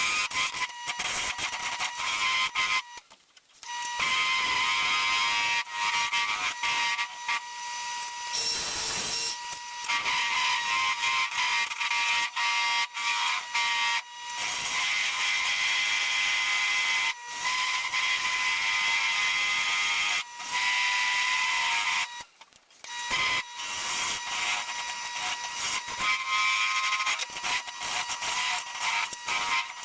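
Wood lathe running with a steady high whine while a tool works the spinning green cherry wood, giving a hissing scrape over the motor tone. The sound breaks off abruptly several times and picks up again.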